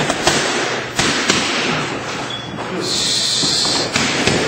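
Boxing punches smacking into focus mitts, several sharp slaps in quick succession, then more after a pause. A high steady hiss lasts about a second in the middle.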